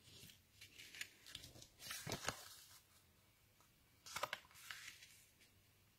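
Faint rustling and scraping of card stock and a paper die-cut being handled and laid down on a card, with a few light taps. It comes in two short spells, one from about half a second to two and a half seconds in and one around four seconds in.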